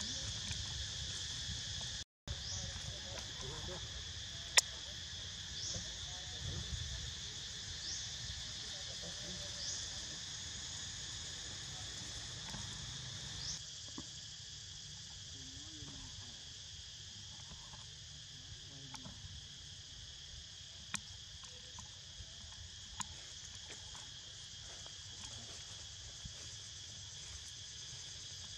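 Steady shrill chorus of insects. In the first half, short rising chirps come every couple of seconds, and a few sharp clicks are scattered through. The chorus gets a little quieter about halfway through.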